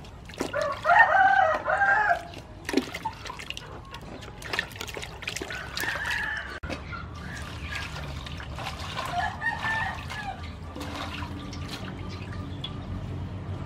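Water splashing and dripping as vegetables are rubbed and rinsed by hand in a metal basin. A rooster crows loudly about a second in, with fainter crows around six and nine seconds.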